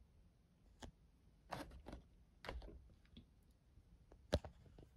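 Faint clicks and short crinkles of a carded action figure's clear plastic blister and cardboard backing being handled and turned, with a sharper click about four seconds in.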